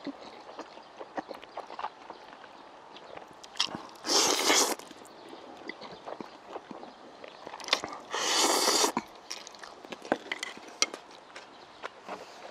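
A man slurping spicy cold chewy noodles (jjolmyeon): two long wet slurps, one about four seconds in and one about eight seconds in, with small chewing and mouth clicks between them.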